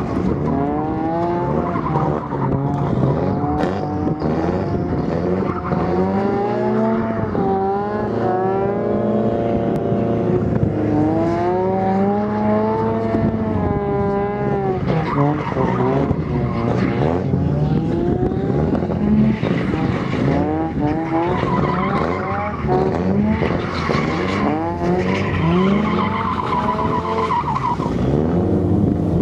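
Naturally aspirated Mazda RX-7 FC3S's 13B rotary engine revving up and down again and again while the car drifts, its rear tyres squealing and skidding on the asphalt.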